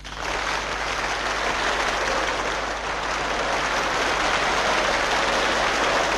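Audience applauding: a dense, even clatter of many hands that breaks out just as the orchestral music stops and keeps going.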